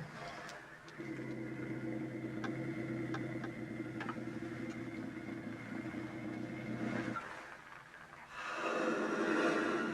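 An animal growling: one long, low, steady growl lasting about six seconds, then a shorter, louder growl near the end.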